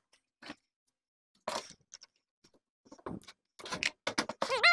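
Clicks and knocks of a Husqvarna 142 chainsaw being handled and turned around on a workbench, thickening into a rapid cluster of knocks over the last second and a half. A brief wavering squeal comes right at the end.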